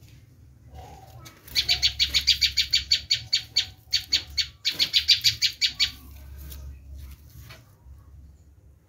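Prenjak lumut giving its harsh screaming call: two fast runs of sharp, high notes, about seven a second, with a brief break between them, over a faint low hum.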